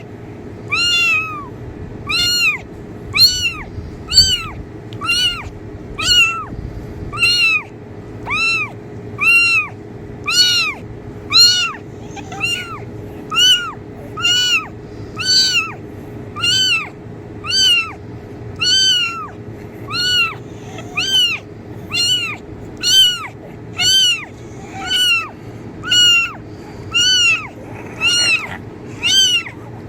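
A kitten meowing over and over in a steady series, roughly one high-pitched meow every two-thirds of a second, each call rising and then falling in pitch.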